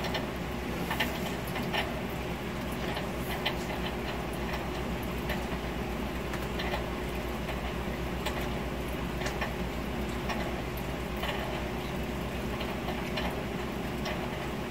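Close-up chewing of a grinder salad, fried salami and cheeseburger sandwich: scattered soft crunches and wet mouth clicks at irregular moments, over a steady low background hum.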